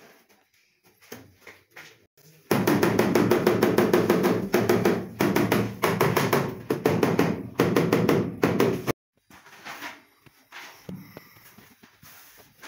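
Rubber mallet tapping a large ceramic wall tile to bed it into the adhesive: rapid knocks, about five or six a second, starting suddenly a couple of seconds in and stopping abruptly about nine seconds in, with quieter handling knocks before and after.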